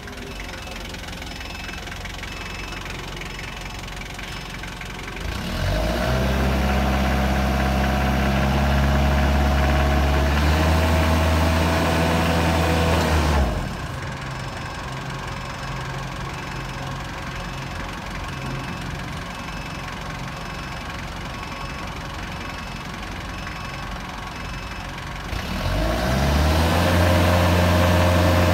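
A 3-ton forklift's Isuzu diesel engine idling, then revving up about five seconds in. It holds at high revs for about eight seconds and drops suddenly back to idle, then revs up again near the end.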